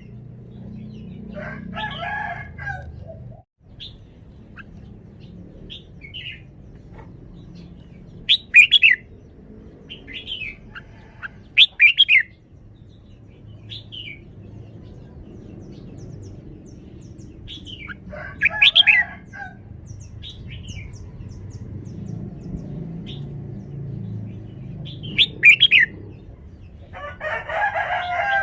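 Red-whiskered bulbul singing short, bright phrases every few seconds. A longer, lower call from another bird comes three times.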